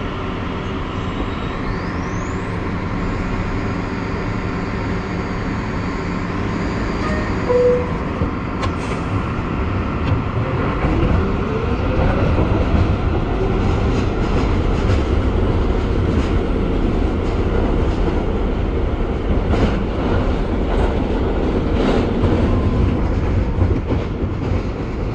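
R62A subway car running through a tunnel: steady rumble and clatter of steel wheels on the rails. About ten seconds in a rising whine comes up as the train gathers speed, and the running gets a little louder.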